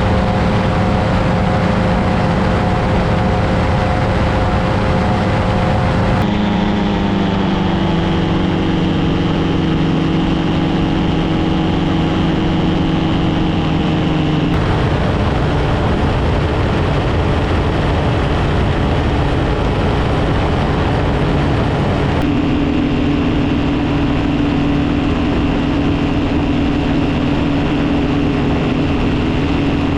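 Paramotor engine and propeller running steadily at cruising power. Its pitch jumps slightly and abruptly about six, fourteen and twenty-two seconds in.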